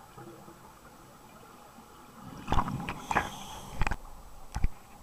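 Underwater scuba breathing: after a quiet couple of seconds, exhaled bubbles burble past the microphone in several short bursts from about halfway in.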